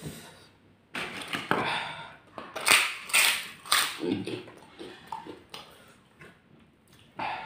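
Crisp kerupuk crackers crunching as they are bitten and chewed close to the microphone: a run of sharp crunches, loudest a little after two seconds in, then quieter chewing crunches.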